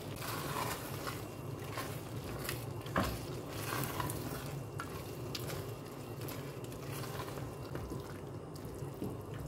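Spatula stirring macaroni and melting cheese through a thick cream sauce in a cooking pot, scraping and clicking lightly against the pot, with one sharper knock about three seconds in. A steady low hum runs underneath.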